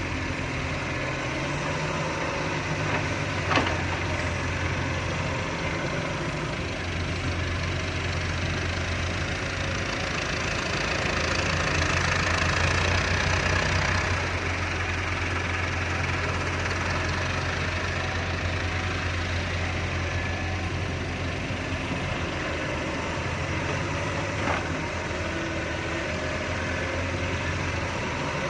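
Fiat-Hitachi 150.3 excavator's diesel engine running steadily, working harder and louder for a few seconds around the middle. Two short sharp knocks come through, one a few seconds in and one near the end.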